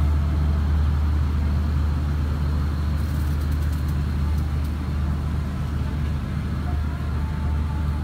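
A steady low rumble, a constant deep hum with a noisy haze over it, and faint voices in the background near the end.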